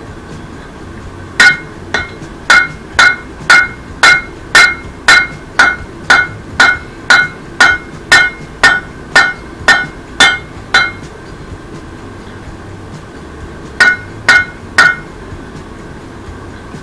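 Blacksmith's hammer striking hot rebar on an anvil, bending a tongs rein. About nineteen ringing blows at roughly two a second, a pause, then three more near the end.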